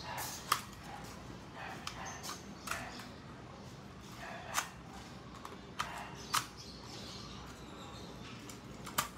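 Half a dozen short, sharp clicks or knocks, spaced irregularly over a faint steady background.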